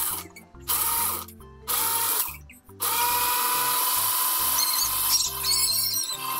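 Ninja blender blending a smoothie. It runs three short pulses of about half a second each, then runs steadily from about three seconds in. Each start spins up with a rising whine.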